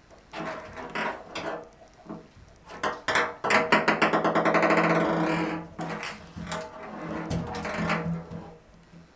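A ping pong ball clattering around a bathtub as a cat bats it: scattered sharp ticks of the ball hitting the tub, then about two seconds of fast, continuous rattling as it bounces and rolls over the tub floor, the loudest part, followed by a few softer knocks.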